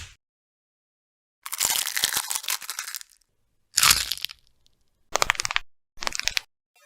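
Eggshells being cracked and crushed: a long crackly crunch, then a single sharp crack that dies away. Then two knuckle cracks, each a short quick cluster of pops, with another starting at the very end.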